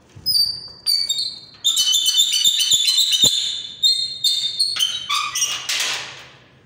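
Steel grille gate unlatched with a couple of metallic knocks, then swung open on squealing hinges: a long run of high-pitched squeaks and screeches, ending in a scraping hiss near the end.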